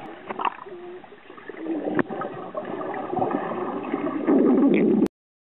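Pool water heard underwater, muffled: gurgling and bubbling with a sharp knock about two seconds in. It grows louder near the end, then cuts off abruptly.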